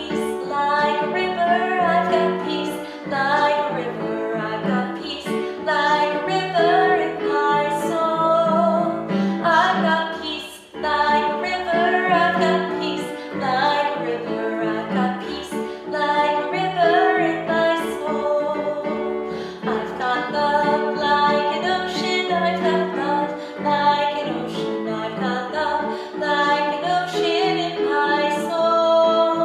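A woman singing vocal warm-up exercises while accompanying herself on a Yamaha electronic keyboard, with a brief break about ten seconds in.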